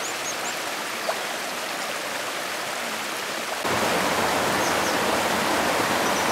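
Stream water rushing over rocks, a steady rush that grows suddenly louder a little past halfway through.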